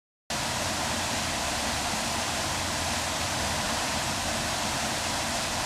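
Waterfall pouring into its pool, a steady even rush of falling water that starts abruptly after a split second of dead silence.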